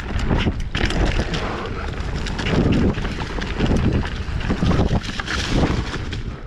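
Wind buffeting the microphone over the rattle and irregular thumps of a mountain bike rolling fast over rocks and roots.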